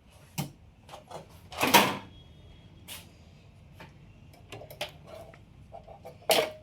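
Knocks and clicks of hardware being handled on an open rack server chassis: a few separate bumps, the loudest about two seconds in and another near the end, with lighter clicks between.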